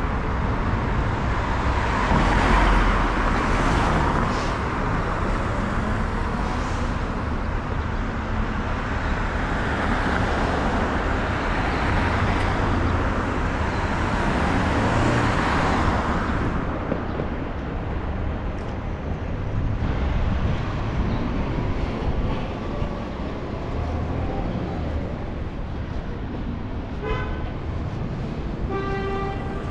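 City street traffic: cars passing close by with tyre and engine noise swelling and fading. Short car horn beeps come near the end.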